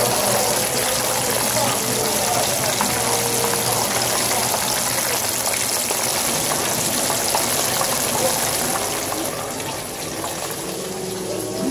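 Chicken pieces frying in hot oil in a pan: a steady sizzle with small crackles, easing a little near the end.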